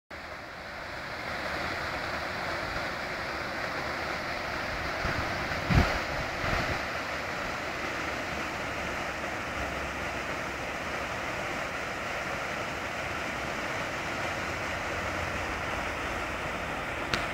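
Water rushing steadily over a river weir running high, at about 1.3 metres on the gauge. A brief thump about six seconds in.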